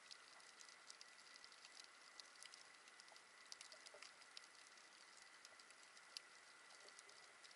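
Faint underwater crackle of scattered, irregular sharp clicks, typical of snapping shrimp on a coral reef, heard through the action camera's underwater housing. A faint steady thin tone runs beneath it.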